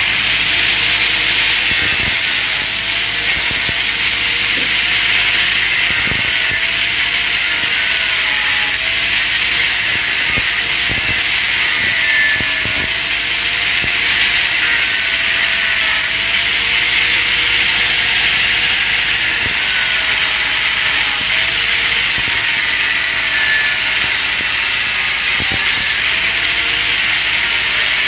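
Electric angle grinder running steadily with its disc on the weld of a stainless steel pipe joint, a harsh continuous grinding hiss. The motor's pitch dips slightly every couple of seconds.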